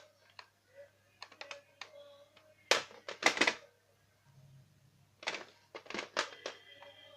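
A tactical shotgun being handled: small clicks, then two rounds of loud, sharp metallic clacks a couple of seconds apart, each a quick pair.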